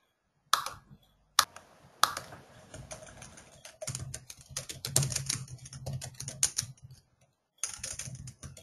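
Typing on a computer keyboard: a couple of separate clicks, then a run of quick keystrokes from about two seconds in, pausing briefly near the end.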